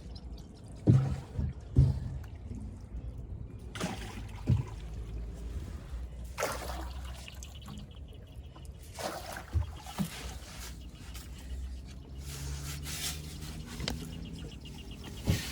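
Small boat being rowed with a makeshift oar: irregular splashing strokes in the water every one to three seconds, water trickling off the oar, and occasional short knocks.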